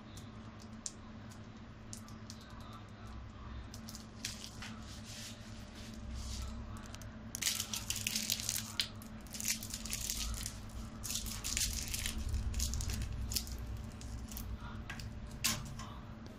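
Crinkly rustling and crackling, like a sheet or wrapper being handled, with many small clicks, loudest through the middle stretch. A steady low hum runs underneath.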